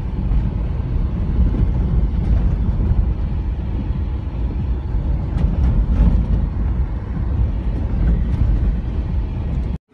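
A vehicle driving along an unpaved dirt road: a steady low rumble of engine and road noise.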